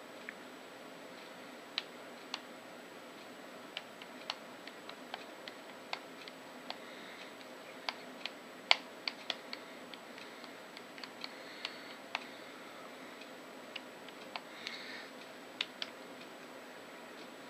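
Fingertips tapping the plastic stickers of a LanLan 2x2 puzzle cube: irregular light clicks, several quick ones in a row then pauses, with one louder tap about nine seconds in. The taps mark the memorisation stage of a blindfolded solve, the solver tapping through the pieces of the cube.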